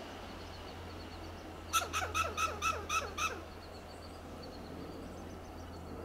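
Western gray squirrel giving its scolding alarm call: a quick run of seven sharp barks, about four a second, starting about two seconds in.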